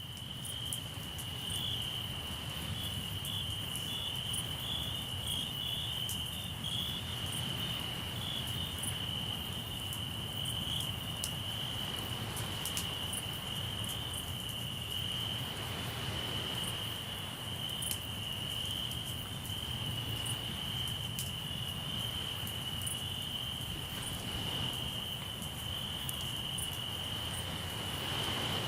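Crickets trilling steadily at one high pitch, over the scattered sharp pops and crackles of a campfire and a low, steady wash of sea surf.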